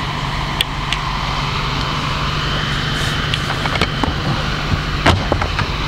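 A steady low mechanical hum under outdoor background noise, with a few short clicks and knocks of fishing gear being handled about three and a half to five and a half seconds in.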